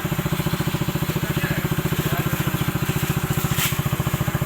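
Freshly rebuilt motorcycle engine idling steadily with an even, fast pulse. A brief click about three and a half seconds in.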